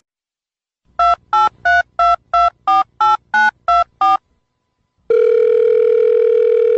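Touch-tone telephone dialing: ten short two-tone keypad beeps in quick succession, like a phone number being dialed. After a brief pause comes a steady phone tone lasting about two seconds.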